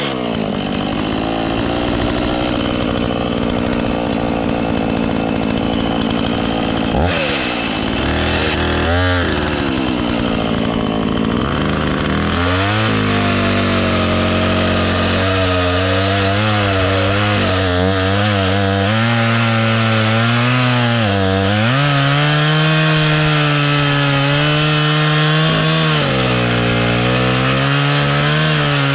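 Husqvarna two-stroke chainsaw running at high revs while cutting through a dead elm, its engine pitch sagging several times as the bar loads up in the wood and then picking up again. The chain is dull, so the saw labours through the cut.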